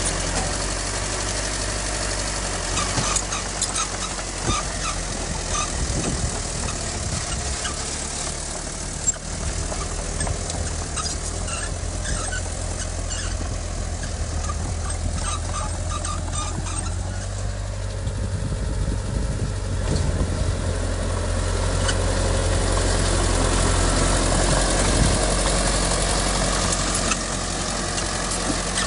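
Heavy diesel earthmoving machinery running with a steady low drone, with scattered metallic clanks and knocks. It grows louder about three-quarters of the way through.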